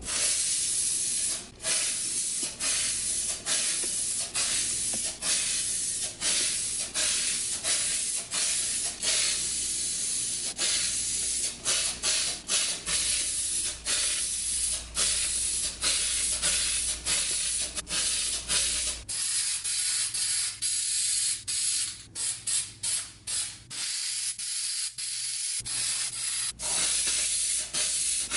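Rust-Oleum Universal aerosol spray paint can hissing in a run of short spray passes, with brief breaks about once or twice a second and more often near the end, as the paint goes onto the bench grinder's cast housing.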